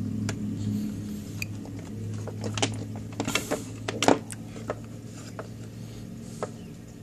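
Hands handling a small electronic unit's plastic enclosure, wiring and rubber-sheathed cables: a run of small clicks and taps in the middle, the sharpest about four seconds in, over a steady low background hum.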